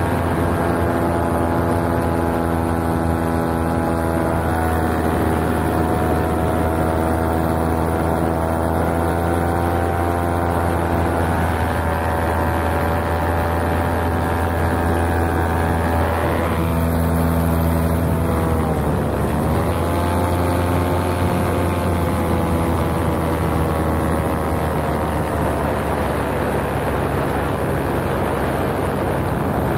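Paramotor engine and propeller running steadily in flight, a droning note with strong harmonics. A little past halfway the pitch shifts, dipping briefly and then climbing again as the throttle changes.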